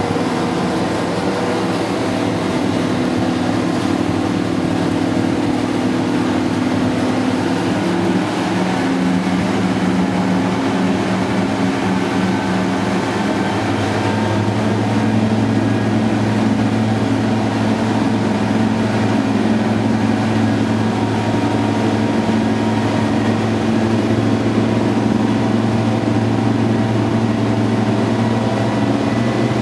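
Class 55 Deltic's twin Napier Deltic two-stroke diesel engines working at full power, heard from onboard as a loud steady engine drone. About halfway through the note shifts and a deeper hum comes in.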